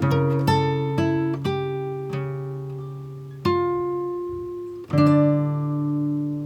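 Background music: plucked acoustic guitar notes that ring out and fade, with a new chord or note every second or so and a slower, sparser stretch in the middle.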